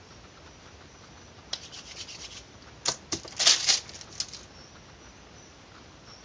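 A hand brushing and sliding across a paper-covered tabletop: a string of papery rubs lasting about three seconds, loudest near the middle.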